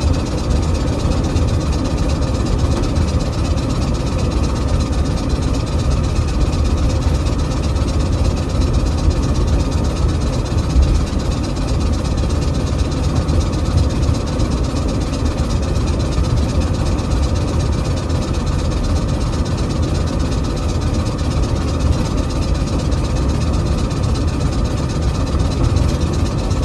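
A new car driving, with a steady low rumble and faint steady tones above it. This is the abnormal noise that has been heard the whole time while driving since the day after rain, cause unknown.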